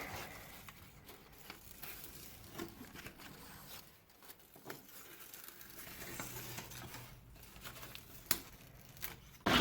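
Faint crinkling and rustling of a pleated paper shade and its peel-off adhesive tape being handled, with a few small clicks.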